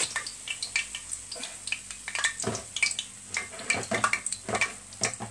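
Utensils clinking and scraping against a frying pan, with oil sizzling as potato pancakes shallow-fry. The clinks come irregularly, several a second.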